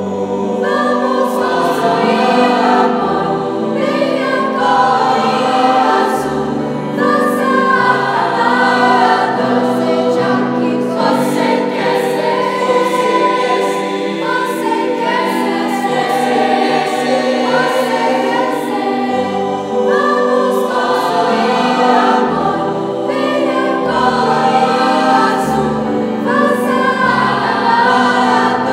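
Mixed youth choir of teenage girls and boys singing together in several parts, with sustained notes that change in long phrases.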